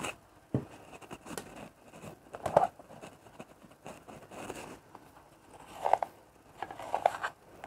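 Scattered light clicks, knocks and scrapes of kitchen utensils and containers being handled, about half a dozen short sounds with pauses between.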